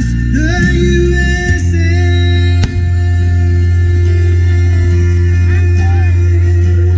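Music: a song with singing over steady, sustained low notes.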